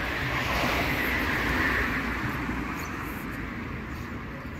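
Street traffic noise: a passing vehicle swells to its loudest between one and two seconds in, then slowly fades, over a steady low rumble.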